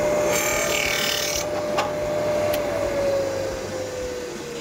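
Benchtop chop saw cutting rubber air brake hose: the motor runs with a steady whine, and a harsher rasp comes as the blade goes through the hose about half a second to a second and a half in. From about three seconds in, the whine slowly falls in pitch and fades as the saw spins down.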